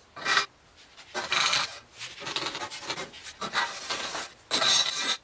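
A series of rasping scrapes on sheet metal: one short stroke, then about five longer ones of up to a second each with short gaps between.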